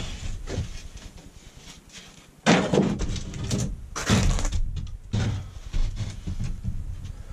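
A large OSB sheathing panel being handled and turned around inside a van's metal cargo area: irregular thumps and scrapes, the loudest starting about two and a half seconds in and again around four and five seconds.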